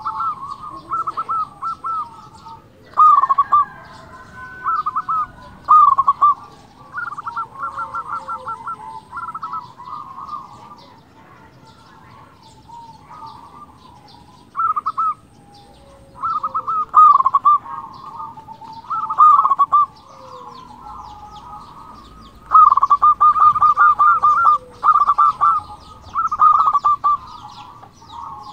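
Zebra dove (local perkutut) singing its cooing song: bouts of quick, rhythmic coos repeated every few seconds, with a lull in the middle and a run of longer bouts near the end. Small birds chirp faintly in the background.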